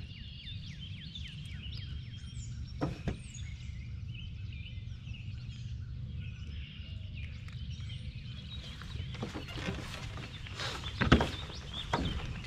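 Songbirds chirping and calling over a steady low rumble. There are a couple of sharp clicks about three seconds in, and from about nine seconds on a run of knocks and thumps from someone handling gear in the canoe, the loudest about eleven seconds in.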